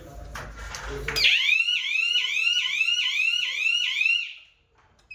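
Electronic fire alarm hooter sounding an alarm: a loud, rapidly repeating rising whoop, about two and a half sweeps a second, which starts about a second in and cuts off suddenly about a second before the end.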